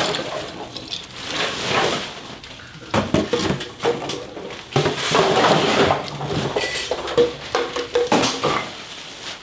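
Irregular clinking and clattering of household junk and bottles being picked up off a wood floor and tossed, with rustling in between.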